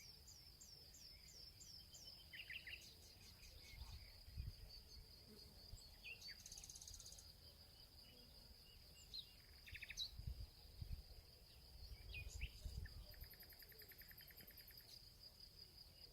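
Faint outdoor nature ambience: a steady high insect drone with birds chirping, a run of quick falling chirps at the start and a rapid trill near the end, and a few low thumps.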